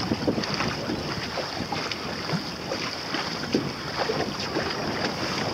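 Water splashing and slapping against the hull of a small sailboat under way, with wind buffeting the microphone.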